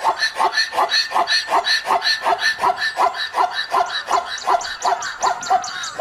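Zebra calling: a long run of quick, barking yelps, about four a second, repeated evenly.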